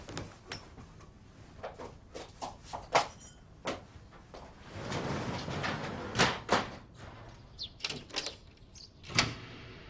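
A series of knocks and clicks from objects being handled, like household movement, with a brief hissing swell about five seconds in and sharp knocks near the end.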